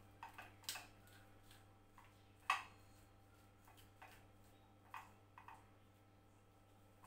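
Faint, scattered clicks of a fork against a ceramic plate while mashing boiled potato, about eight light taps at uneven intervals. The loudest comes about two and a half seconds in.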